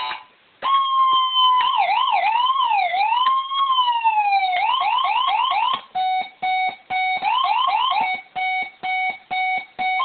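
Electronic police siren cycling through its tones as its selector knob is turned. A steady tone gives way to a slow rising and falling wail, then a fast yelp from about 4.5 s. From about 6 s the sound becomes short yelp bursts alternating with steady beeps.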